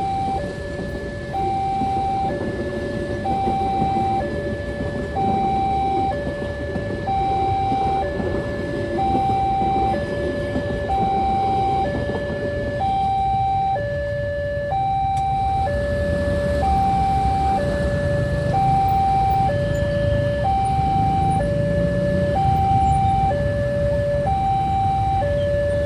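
Railway level-crossing warning alarm sounding a steady two-tone signal, a higher and a lower tone alternating about once a second, warning that a train is approaching. A low rumble of vehicle traffic runs underneath.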